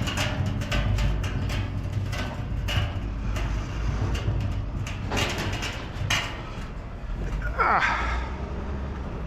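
A large barrel being handled and loaded onto a vehicle: repeated knocks and clatter, then a scraping squeak falling in pitch about three-quarters of the way through as it slides into place.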